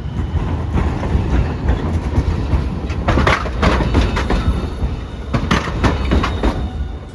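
Hiroden streetcar rolling past with a steady low rumble, its wheels clacking sharply several times over the track about halfway through.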